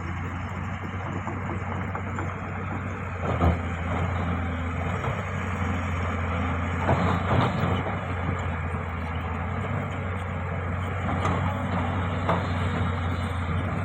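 Diesel engine of a heavy construction machine running steadily, with a few sharp knocks or clanks about three and a half seconds in, twice around seven seconds, and twice more near the end.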